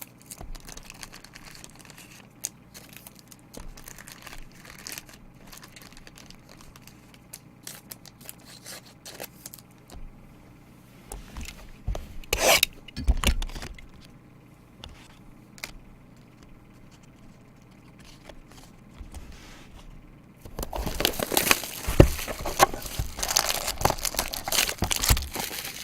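Plastic wrapping on trading-card packaging being torn and crinkled. Light handling clicks at first, a short loud tear about halfway through, then about five seconds of loud, continuous crinkling and tearing near the end, consistent with the next sealed box being opened.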